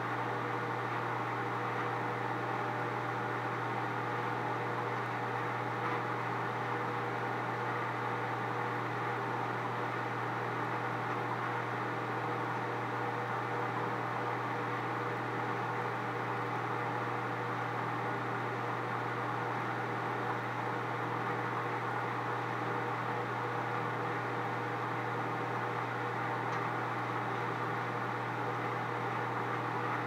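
Countertop microwave oven running: a steady low hum with an even whirring noise over it.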